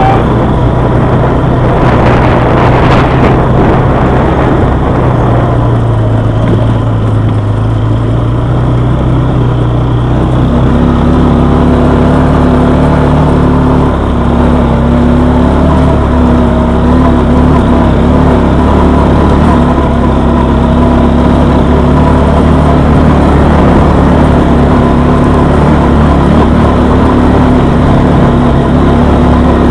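Quad bike engine running continuously under way on a rough dirt track; its note steps up about ten seconds in and then holds steady.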